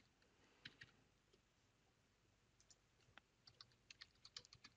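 Faint computer keyboard keystrokes as a password is typed: two taps a little under a second in, then a quick run of about a dozen near the end.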